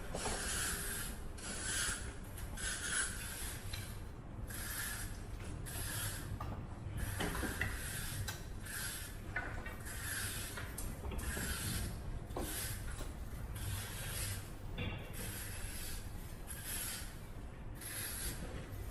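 Repeated rasping, scraping strokes, about one a second and a little irregular, like a tool or brush worked back and forth over a rough surface, over a low background rumble.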